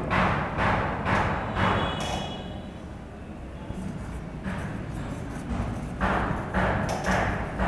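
Marker pen writing on a whiteboard: a series of short rasping strokes, a brief thin squeak about two seconds in, a pause, then another run of strokes.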